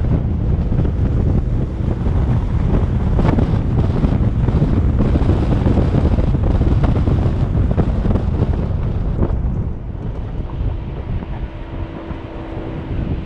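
Jeep driving on a gravel desert track: wind rushing over the microphone along with tyre and road noise. It gets somewhat quieter about ten seconds in.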